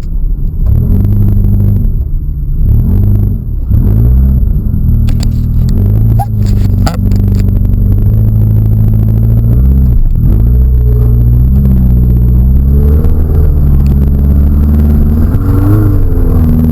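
Car engine revving hard under load, its pitch dropping and climbing again several times as the throttle is worked. A few sharp knocks or scrapes come about five to seven seconds in.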